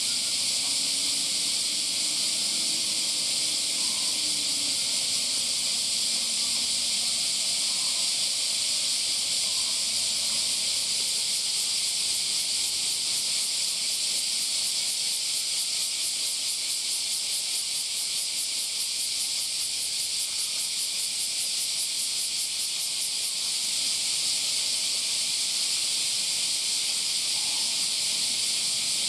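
Chorus of cicadas: a steady, high-pitched buzzing hiss, pulsing rapidly for a while around the middle.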